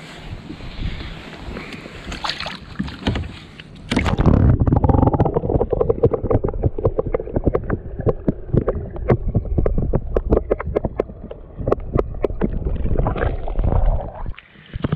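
Wind and water washing around a kayak for the first few seconds, then a sudden switch to the muffled sound of a camera held underwater: a low rumble with rapid clicks and gurgles of water against the housing. It surfaces again near the end.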